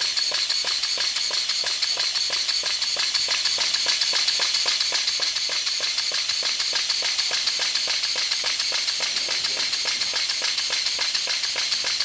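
Small brass model horizontal steam engine running steadily, its rapid, even exhaust beats over a constant hiss.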